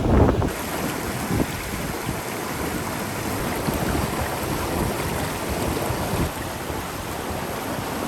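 Steady rushing of the Grey Mare's Tail waterfall, with wind buffeting the microphone in the first half-second.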